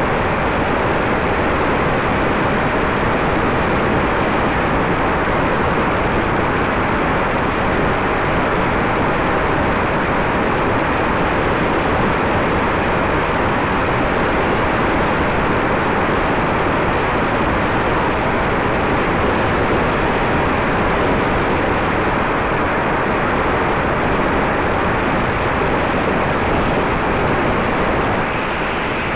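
Loud, steady rush of air over the onboard camera of an electric box-wing FPV airplane in flight, with a faint steady whine from its rear-mounted electric motor and propeller. It eases slightly near the end.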